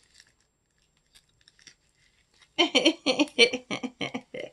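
Faint small ticks of items being handled, then, a little past halfway, a woman's voice in a quick run of short syllables, about five a second.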